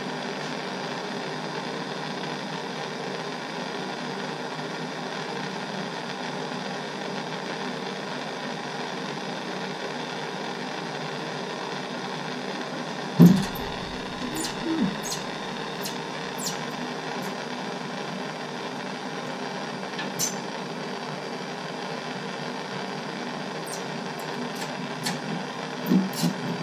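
Handheld gas torch flame burning with a steady hiss while it heats a brass shower valve body to melt the solder in a sweated joint. About halfway through there is a knock, followed by scattered sharp ticks.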